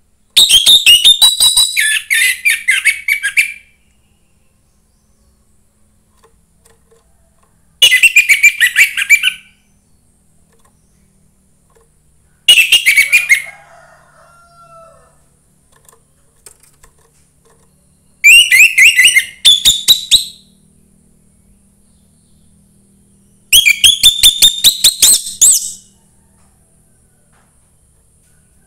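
Orange-headed thrush, a young wild-caught bird, singing five separate phrases of rapid, repeated notes, each a second or two to three seconds long, with pauses of a few seconds between them.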